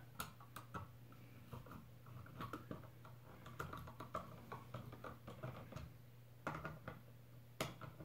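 Faint, irregular small clicks and scrapes of a hand screwdriver driving a drywall screw through the bottom mounting ear of a wall outlet into a recessed electrical box.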